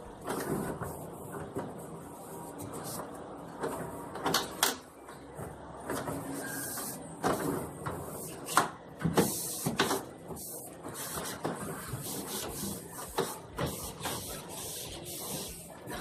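Irregular knocks, clatters and short scraping or scrubbing noises from household items being handled and cleaned, with a quicker run of small taps near the end.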